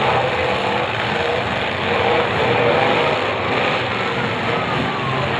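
Several demolition derby cars' engines running and revving together, a dense mix of engine noise with pitches rising and falling.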